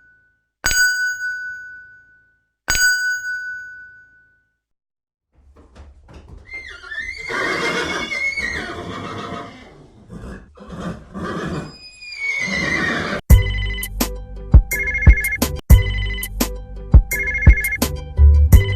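A string of separate sound effects: two single bell-like dings about two seconds apart, each ringing out; then several seconds of a pitched animal-like call that slides up and down; then a bell-type ringing in repeated bursts, about one a second.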